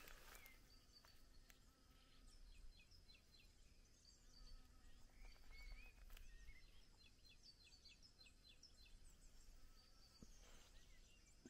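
Near silence with faint birds chirping in the background: two runs of quick, high, repeated notes.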